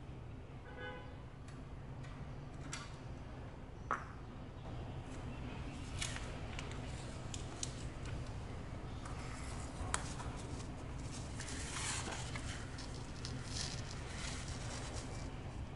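Faint steady low hum with a few sharp little clicks and, in the second half, light scratchy rustling.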